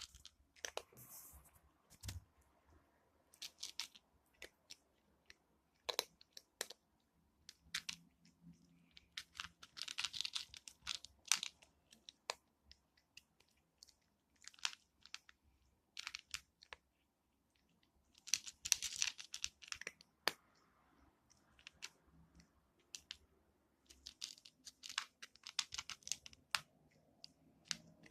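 A cat crunching dry kibble: sharp crunches in irregular clusters, with short pauses between mouthfuls.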